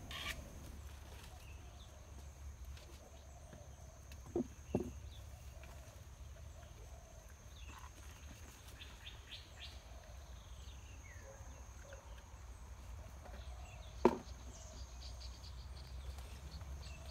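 Quiet forest ambience: a steady high insect drone and faint bird chirps. Over it, three short sharp snaps, two close together about four and a half seconds in and one near the end, as young elephant ear (taro) shoots are snapped off by hand among the leaves.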